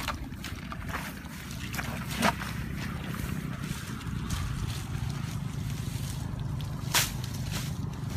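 Steady low wind rumble on the microphone, with a few short sharp clicks or knocks: one about a second in, one a little past two seconds, and a louder one near the end.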